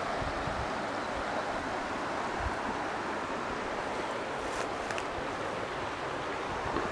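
Steady rush of river water running over a shallow rocky riffle, with a few faint low bumps of wind or handling on the microphone.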